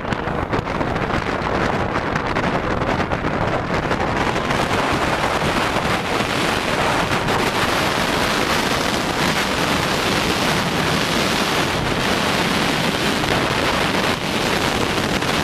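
Steady, loud wind noise buffeting the bare microphone of a camera on a motorcycle riding at road speed, with no clear engine tone standing out.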